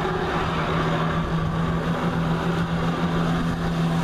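Jet ski engine running steadily under load, driving a flyboard's water jets as the rider lifts off the water; a steady drone with an even, unchanging pitch.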